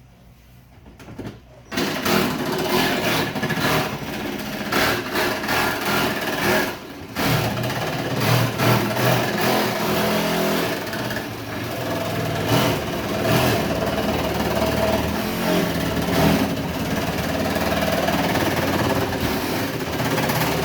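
A handheld power saw cutting through a plastic bucket lid. It starts about two seconds in, eases off briefly around seven seconds, then keeps cutting.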